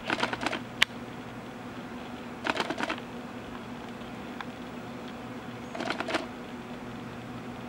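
Gray squirrel cracking and chewing seeds: three short bursts of rapid crunchy clicking a couple of seconds apart, with a single sharp click just after the first, over a steady low hum.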